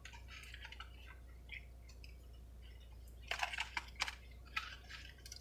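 Chewing on crispy breaded chicken nuggets: soft scattered crackles and clicks, with a louder burst of crunching about three to four seconds in.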